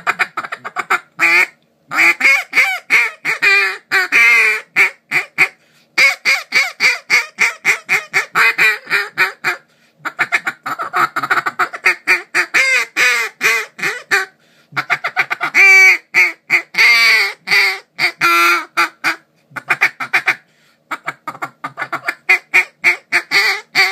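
Basin Calls HalfPint modified double-reed duck call blown by mouth. It gives about six runs of rapid, raspy quacks and chatter, each run broken off by a short pause.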